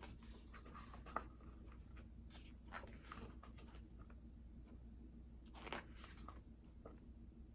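Faint paper rustles and soft taps of a photobook's pages being turned one after another, a handful of separate brief strokes over a low room hum.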